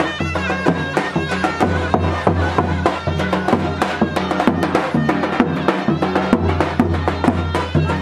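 Turkish folk dance music for a halay: a reedy wind instrument plays the melody over a low drone and a steady drum beat.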